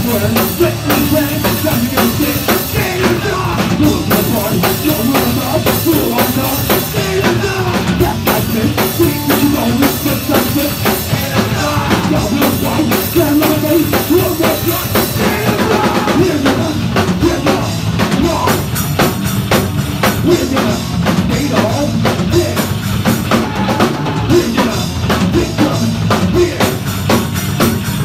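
Live hardcore punk band playing loud and fast, with the drum kit driving a dense wall of amplified sound and constant cymbals.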